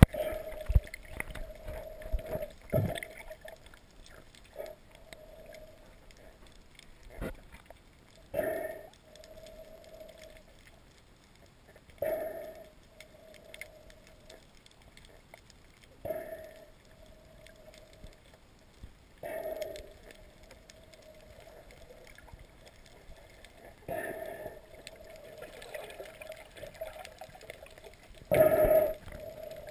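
Muffled underwater sound through a camera housing: gurgling water sloshes about every four seconds, each trailed by a faint steady hum.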